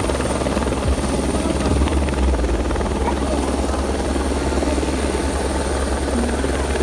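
Helicopter hovering close by, its rotor and engine running steadily and loud.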